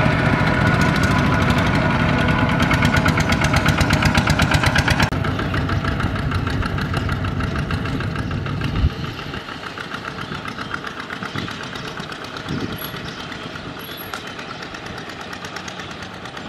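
Single-cylinder diesel engines of Kubota RT120 power tillers (two-wheel tractors) running with a fast, steady putt as they pull loaded trailers. The sound drops sharply about five seconds in and again near nine seconds, then keeps fading as the tillers pull away.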